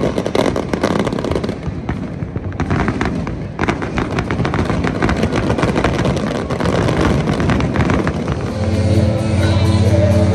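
Fireworks crackling and banging in quick, dense succession. Music with steady held notes cuts in about eight and a half seconds in.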